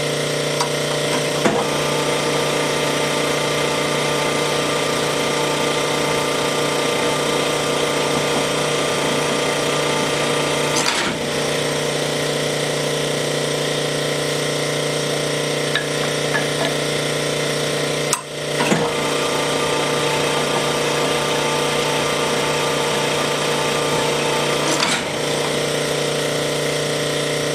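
Sunnen connecting-rod honing machine running steadily as the big end of a worn Willys connecting rod is stroked back and forth on the oil-fed honing mandrel, resizing it round, with just a hair more to go. The sound dips briefly three times.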